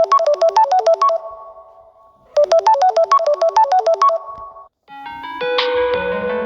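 Phone ringtones playing one after another. A fast run of short pitched notes plays twice, each time ending in a held tone that fades. After a brief gap near the end, a different, fuller ringtone with many overlapping notes begins.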